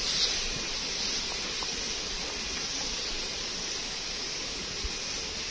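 Steady outdoor hiss, brightest in the high range, with a short splash about a quarter-second in as hands work a fish trap in shallow stream water.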